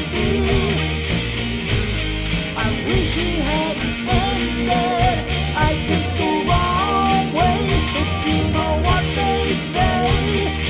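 A rock song playing: a steady drum beat and bass under a bending melodic lead line.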